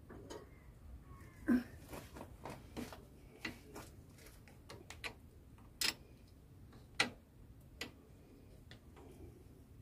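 Irregular metallic clicks and clinks of a ring spanner and pedal knocking against the bicycle's crank arm as a pedal is worked onto it by hand. The louder clinks come about a second and a half in and again around six and seven seconds in.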